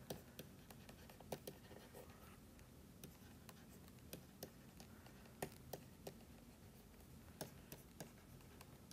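Faint, irregular taps and light scratches of a stylus writing on a tablet screen, over near silence.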